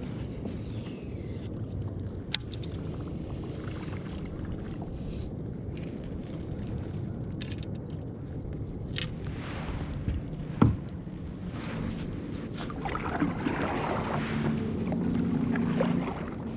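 Wind and water noise on a fishing kayak, with a sharp knock a little past the middle and a fainter click early in. A low hum builds over the last few seconds.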